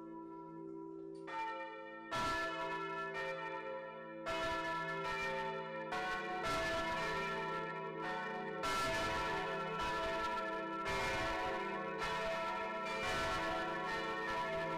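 Church bells pealing: several bells struck in irregular, overlapping order, each stroke ringing on into the next. The peal starts faintly and grows fuller within the first few seconds.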